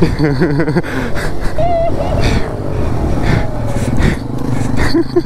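Motorcycle engines running and revving as the bikes ride off across the lot, heard from a helmet camera.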